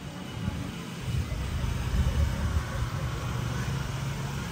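A low, uneven rumble that grows louder about a second in.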